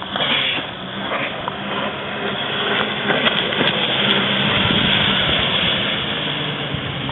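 Jet ski engine running under way, with a steady hum under the rush of water and wind; it grows louder through the middle and eases slightly toward the end.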